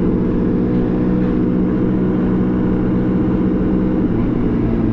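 2009 Honda CBR600RR's inline-four engine running steadily at cruising speed, with wind rush. The engine note shifts slightly about four seconds in.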